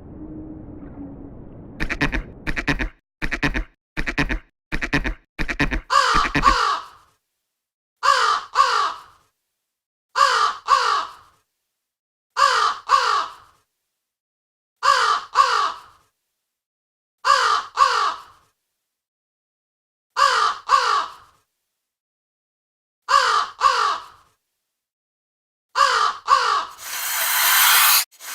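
Harsh bird calls in pairs, repeating evenly about every two and a half seconds with dead silence between, after a quick run of shorter strokes. A steady hiss comes in near the end.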